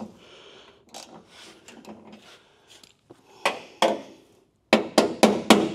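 Faint handling and rubbing on car door hardware, then two knocks about halfway through. Near the end comes a quick run of sharp taps, about four or five a second: a hammer tapping the door striker to shift it a hair for the door alignment.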